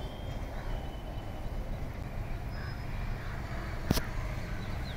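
Wind buffeting the microphone with a low, unsteady rumble, with a few faint bird chirps and a single sharp click about four seconds in.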